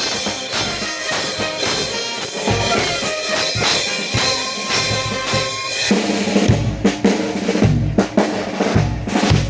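A brass band plays a pasacalle march, with horns held over a steady bass drum and snare beat. About six seconds in the horns drop out and the bass drum and snare carry on alone with heavy hits.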